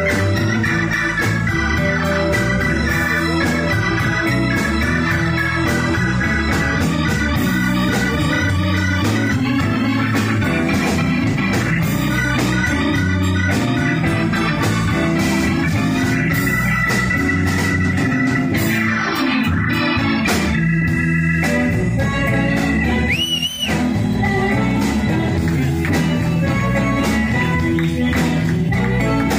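Live blues band playing, led by a Hammond-style organ voice from a Nord Electro 2 stage keyboard, with electric guitar and the rest of the band underneath.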